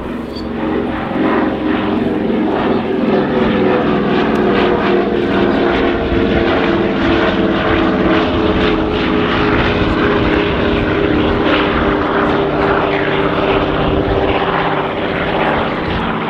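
De Havilland Canada DHC-4 Caribou flying past, its two Pratt & Whitney R-2000 fourteen-cylinder radial engines and propellers running with a steady, even engine note. The sound grows louder over the first two seconds, holds, and eases slightly near the end as the aircraft moves away.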